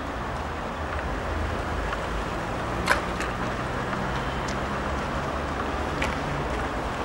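Steady low rumble of a car engine and street traffic, with a few scattered footsteps.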